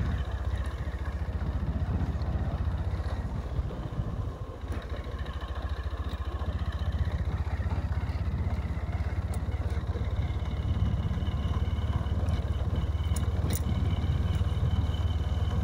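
Motorcycle engine running steadily at a slow cruise, heard from the rider's seat as a low, even rumble.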